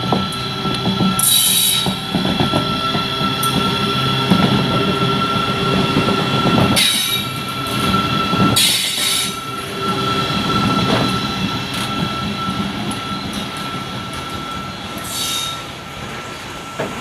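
Freight train hauled by a WAG-12B electric locomotive rolling past close by: a steady rumble of wheels on the rails under a constant high squeal, with four short bursts of hiss.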